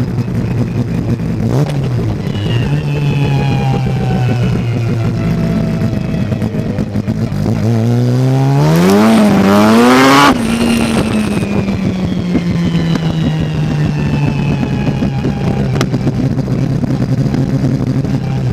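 Race car's Mazda rotary engine running at steady revs, with a brief blip early on. About halfway, the revs climb steeply for about three seconds under hard acceleration, then drop sharply, and it settles back to steady running.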